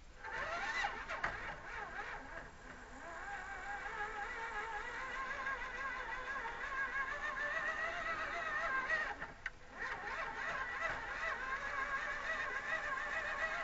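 RC4WD Gelande 2 scale crawler's electric motor and gearbox whining under throttle as it climbs a rock. The pitch wavers as the throttle is worked, drops out briefly about nine and a half seconds in, then picks up again and cuts off suddenly.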